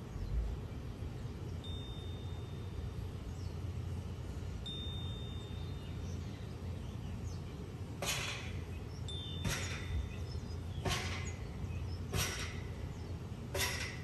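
Outdoor seaside ambience: a steady low rumble of wind and sea, with a few thin, steady high whistled notes. In the second half come five short harsh sounds, evenly spaced about a second and a half apart.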